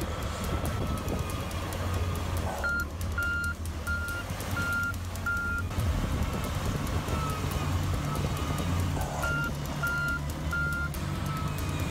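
Shantui SD16L crawler bulldozer's diesel engine running steadily as it works through slush and ice, with a reversing alarm beeping: five evenly spaced beeps about three seconds in, then three more about nine seconds in.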